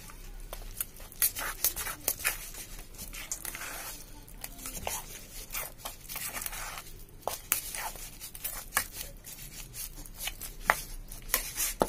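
Metal spoon stirring thick gram-flour batter in a steel bowl: uneven scraping and clicking of the spoon against the bowl's sides.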